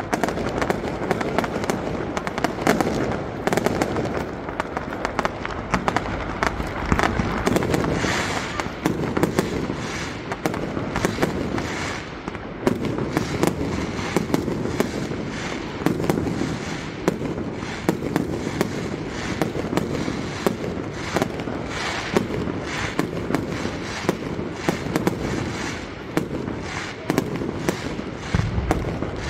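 Fireworks display: aerial shells bursting in a dense, unbroken barrage, many bangs a second, with no let-up.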